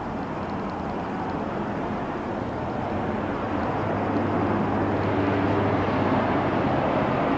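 A distant engine drone that grows steadily louder, with a low steady hum coming through over a wash of noise.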